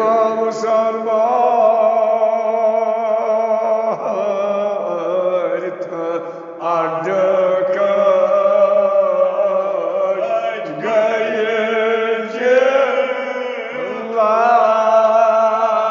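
A man's solo voice chanting a Kashmiri marsiya (Shia elegy) in long, held melodic lines, a new phrase beginning every three to four seconds.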